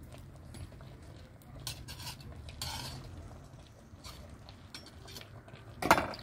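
Kitchen knife scraping and clinking against the rim of an aluminium cooking pot of thick banku dough, with a few light clicks and a short scrape around the middle, then one sharp loud clank near the end.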